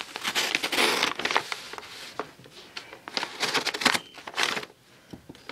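Plastic shipping bag crinkling and rustling as it is handled and slit open with a knife, in irregular spells with sharp crackles.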